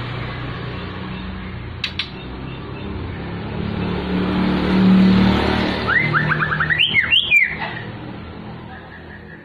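White-rumped shama giving a short burst of quick, sliding whistled notes about six seconds in, over a steady low rumble like road traffic. Two sharp clicks come about two seconds in.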